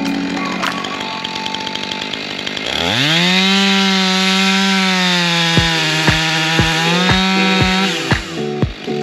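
Chainsaw revving up sharply about three seconds in, held at high revs for about five seconds, then dropping back near the end.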